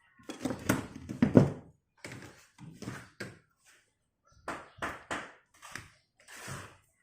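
Wires and tools being handled at an electrical junction box: a run of irregular knocks and taps in small clusters, loudest about a second in.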